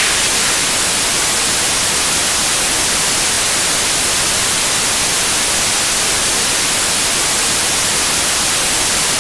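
Television static: a loud, steady hiss of white noise, with no pitch or rhythm in it.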